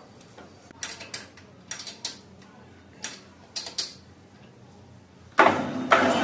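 Pieces of metal clinking together, with a string of sharp ringing clinks. About five seconds in, a much louder rushing, noisy machine or tool sound starts suddenly.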